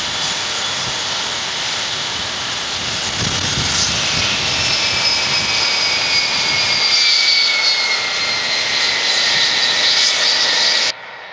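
Loud steady rush like a jet or turbine engine, with two high whines that slowly fall in pitch. It cuts off suddenly near the end.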